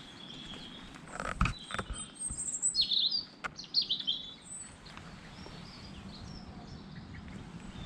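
Wild birds singing and chirping, with a busy run of high chirps about three seconds in, over a faint steady outdoor background. A few sharp knocks and crackles come about a second in.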